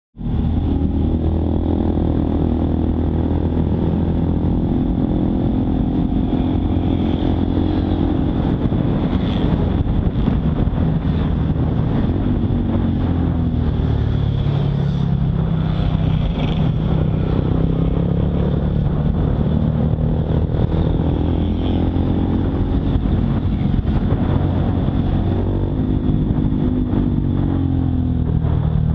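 Honda Monkey 125's single-cylinder four-stroke engine running while riding, its pitch shifting up and down a few times with throttle and gear changes.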